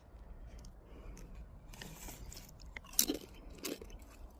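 Someone chewing taro crisps with a series of crisp crunches that begin about two seconds in, the loudest near the three-second mark.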